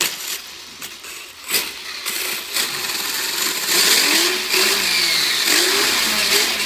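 Battery-powered RC car's electric motor and four-wheel-drive drivetrain running under throttle, its whine gliding up and down as the throttle is worked. It starts with a click and grows louder and busier from about two seconds in.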